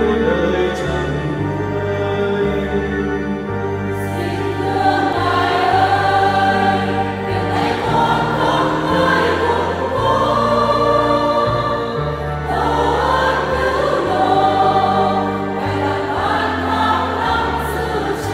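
Church choir singing a Vietnamese Catholic hymn in parts over an instrumental accompaniment of held bass notes. The singing grows fuller about four seconds in.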